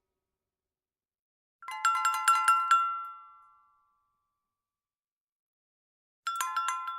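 A small bell rung in two quick runs of strikes: about six rapid strikes a second and a half in, ringing out over a second, then another run of strikes near the end.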